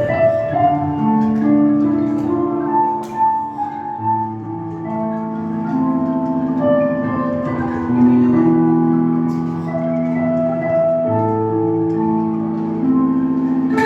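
Angklung ensemble playing a slow melody over held chords, each shaken bamboo note sustained for a second or more.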